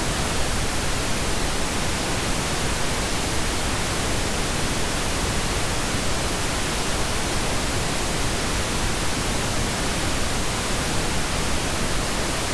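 Steady, even hiss of recording noise, fairly loud, with no other sound.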